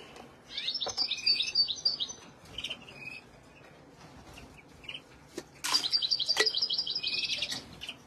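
Caged finches singing: rapid, high twittering phrases in the first few seconds, then a louder fast trill lasting about two seconds past the halfway point.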